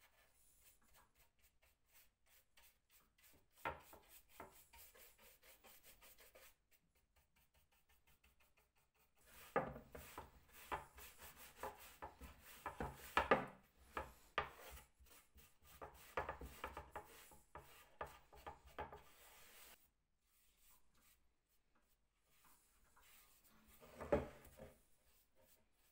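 Wood being rubbed by hand during a mandolin restoration, in runs of many short strokes, densest through the middle. There are two sharper knocks, one a few seconds in and one near the end.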